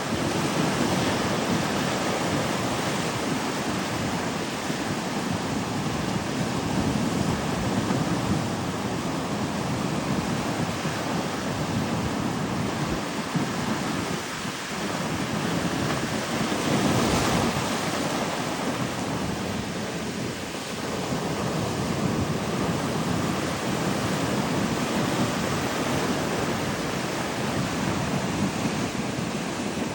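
Ocean surf washing onto the beach, rising and falling in swells, with wind rumbling on the microphone.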